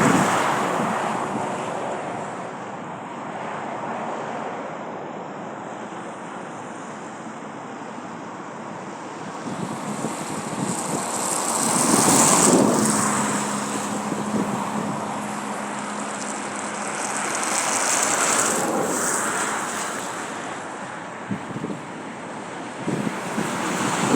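Airbus A300 freighter's twin jet engines on a landing pass: a steady rushing roar that swells about half-way through and again about three-quarters through, with a low steady tone holding for a few seconds after the first swell.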